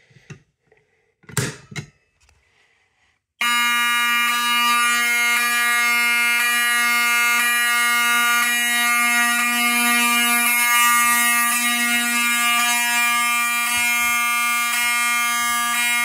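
A Honeywell manual fire alarm pull station is pulled with a short click, and about two seconds later Wheelock mechanical horn strobes sound: a loud, steady, buzzing horn tone that does not break, signalling the fire alarm panel in alarm.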